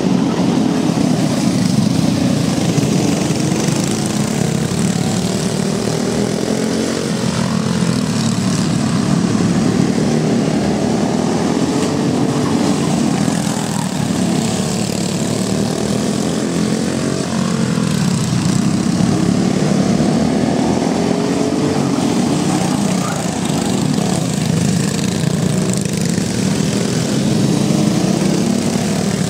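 Several small single-cylinder Briggs & Stratton Raptor kart engines racing together as a continuous pack of engine noise. The pitch sweeps up and down several times as karts throttle through the corners and pass by.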